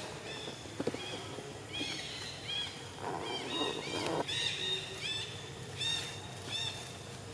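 Repeated short, high-pitched chirping calls, each rising and falling in pitch, coming in quick runs. There is a rustling noise about three seconds in.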